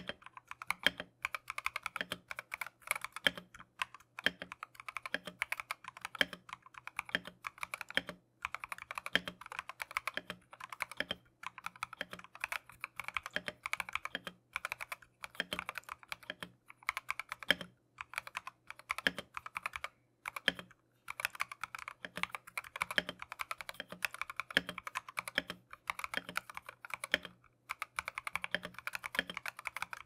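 Stock Keychron V1 mechanical keyboard with factory-lubed C3 Equalz Tangerine linear switches and XDA-profile keycaps being typed on steadily, a fast run of keystrokes with a few short pauses.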